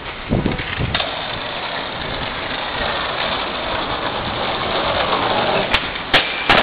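Skateboard wheels rolling on pavement, a steady rushing noise, then a few sharp clacks near the end as the board pops off the tail and lands after a jump down the stairs.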